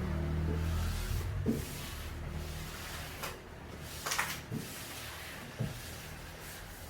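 Door hardware being handled during a repair: a few separate clicks and knocks, the loudest about four seconds in, over a low hum that fades out in the first few seconds.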